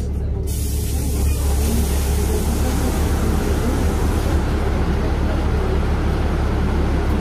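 Interior of a NefAZ 5299 city bus standing at a stop: the engine idles as a steady low hum. A rushing hiss comes in suddenly about half a second in and eases after about four seconds.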